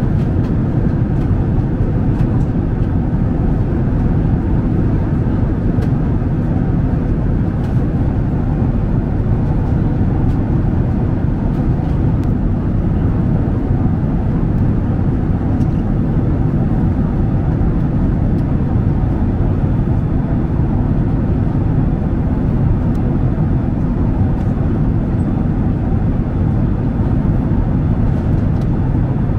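Steady cabin noise of a Boeing 767-300ER airliner at cruise: an unbroken low rush of engine and airflow noise.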